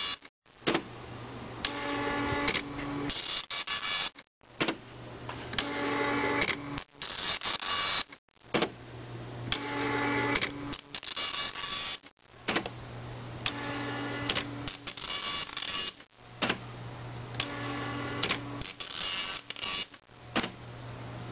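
Panasonic KX-P1090 nine-pin dot matrix printer printing a graphic image: the print head buzzes and rasps across the line in repeated passes. The passes come in cycles of about four seconds, each ending in a brief near-silent pause as the printer works slowly through the image data.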